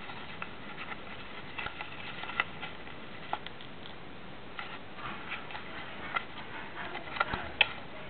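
A square sheet of paper being folded and creased by hand for an origami model: irregular small crackles and clicks over a steady hiss, with the two sharpest snaps near the end.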